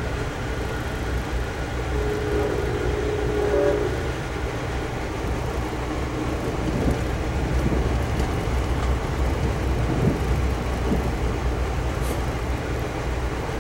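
Steady low rumble inside a moving Amtrak Downeaster passenger coach as it rolls along the track. A chord of held tones, the locomotive's horn, sounds for about two seconds near the start.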